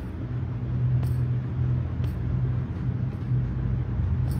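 A steady low engine rumble, like a motor vehicle running nearby, with a few faint clicks over it.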